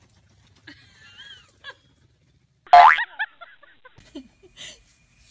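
Cartoon boing sound effect about three seconds in: a sudden twang that sweeps up in pitch and wobbles as it fades. Fainter short gliding chirps come before it.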